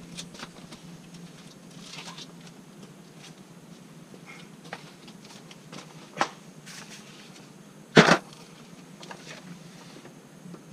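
Scattered clicks and taps of a clip in the wheel-well liner being worked loose by hand, with one loud sharp snap late on.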